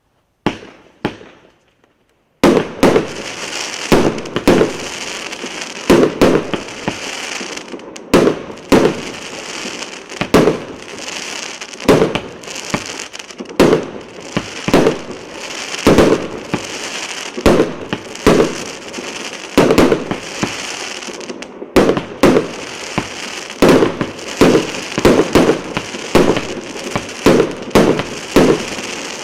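A fireworks cake (battery of shots) going off: a couple of small pops, then after about two seconds a rapid series of sharp bangs, roughly one or two a second, over continuous crackling.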